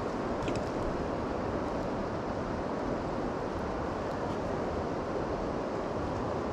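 Steady rushing of a river running high and fast after rain, with a few faint clicks about half a second in.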